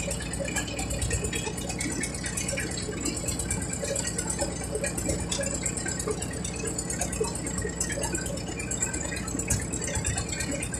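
Small wooden river motorboat's engine running steadily under way, a fast, even pulse.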